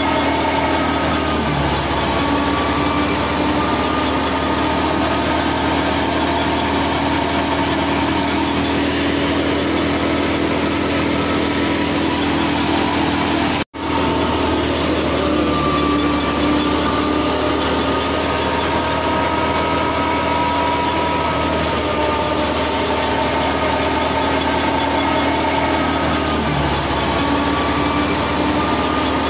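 Small motor of a miniature model wheat thresher running steadily under load as it threshes wheat, a continuous drone with a slightly wavering whine. The sound drops out for an instant about halfway through.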